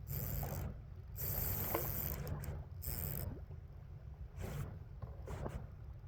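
Water sloshing and splashing in a handful of short bursts over a steady low river rumble, the longest burst about a second and a half in.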